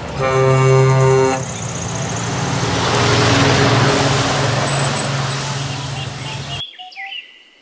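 Truck horn sounding one steady blast of just over a second, then a Scania tanker semi-trailer truck driving past, its engine and tyre noise swelling and fading away. The sound cuts off abruptly near the end.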